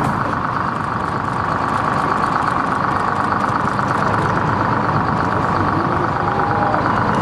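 A boat's engine running steadily at idle, a constant drone.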